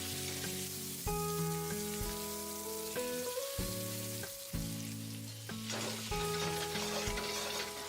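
Butter sizzling as it melts in a hot pan, a steady fizz, under background instrumental music with held notes.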